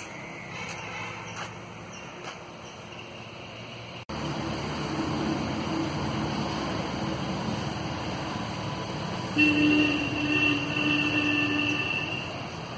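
Steady vehicle rumble, louder after an abrupt cut about four seconds in. Near the end a horn sounds, one steady held blast of about two and a half seconds.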